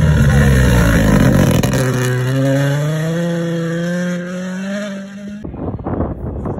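Rally car engine at full throttle on a gravel stage, its pitch climbing steadily as it accelerates. The sound cuts off suddenly about five seconds in, and wind buffets the microphone after that.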